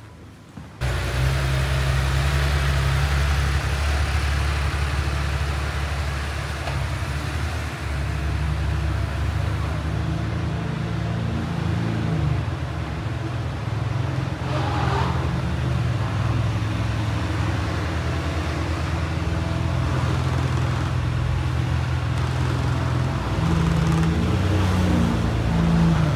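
A car engine running steadily, a low hum whose pitch shifts slightly a few times. It comes in abruptly about a second in.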